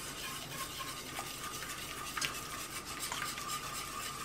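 Wire whisk stirring hot caramel sauce with cream and melting chocolate in a stainless steel saucepan: a steady, quick scraping and swishing, with two light clinks of the whisk against the pan.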